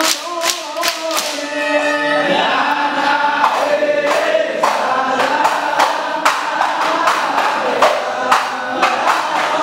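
Group of men singing an Islamic devotional chant (Ishari-style shalawat) together, over a steady beat of sharp percussive strikes about two a second; hand clapping marks the beat at the start.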